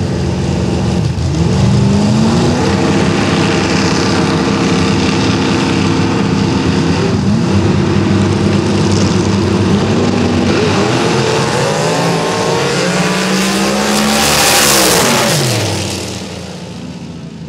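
Two drag-racing cars' engines, one of them supercharged, running loudly at the starting line. Later the engine note climbs steeply as the cars launch and run, then drops sharply as they pass by and the sound falls away near the end.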